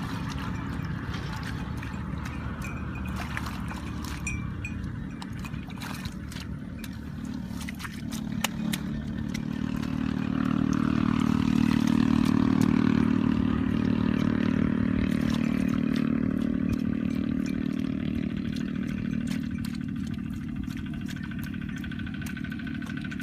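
A motor engine running steadily, swelling louder about halfway through and then easing off, with scattered wet clicks and splashes of hands scooping mud.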